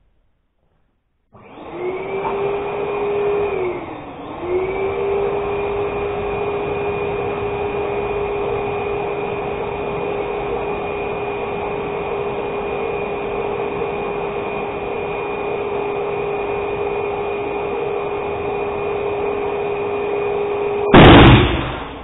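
Electric balloon inflator running with a steady hum as it blows up two pink latex balloons joined at their necks; its tone dips briefly about four seconds in. Near the end the balloons burst with a loud bang and the pump's hum stops.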